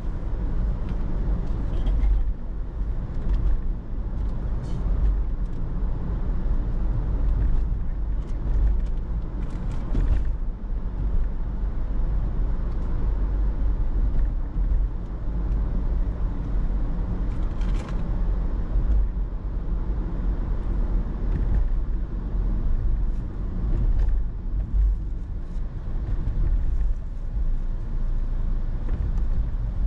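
A car driving on city roads: a steady low rumble of engine and road noise with tyre hiss.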